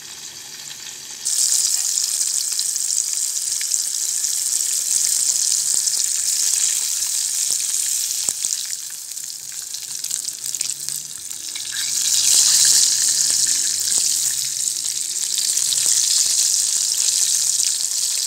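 Flour-coated halva fish (pomfret) sizzling as it shallow-fries in hot oil in a pan. The sizzle jumps louder about a second in, eases off around the middle and swells again.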